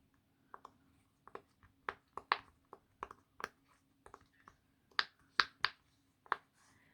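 Silicone pop-it fidget toy bubbles being pushed through one by one, a string of short, irregular pops, some much louder than others. This is the side of the toy thought to be the quieter one.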